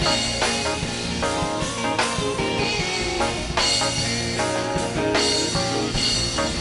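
Live worship band playing: drum kit keeping a steady beat under guitar and sustained chords.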